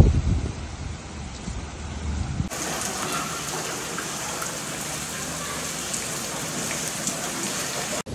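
Heavy rain falling, a steady dense hiss of rain on surfaces from about two and a half seconds in. Before that, a loud low rumble at the start fades away over the first couple of seconds.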